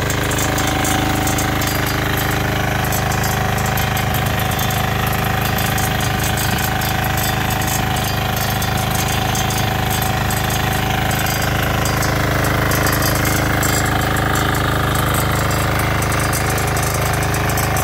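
10 HP power weeder's single-cylinder engine running steadily under load, its centre rotary tines churning through the soil.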